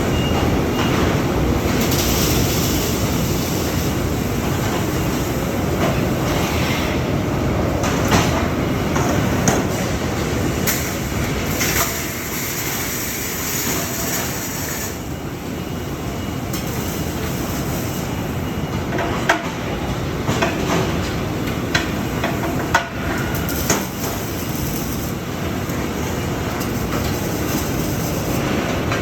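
Steady noise from a robotic welding production line on a factory floor, with scattered sharp clicks and knocks.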